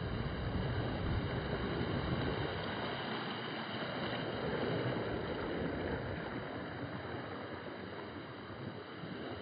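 Steady rush of wind on the microphone and surf washing on the beach, with a heavy low rumble of wind in the first few seconds that then eases.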